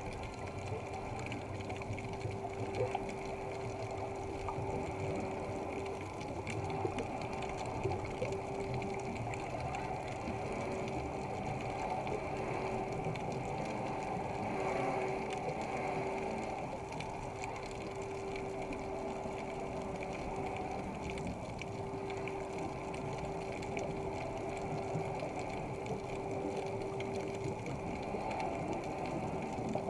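Underwater ambience: a steady droning hum with one constant tone, with faint bubbling from the divers' scuba exhaust.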